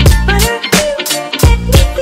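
Background music with a steady beat: drums, deep bass notes and held melody tones.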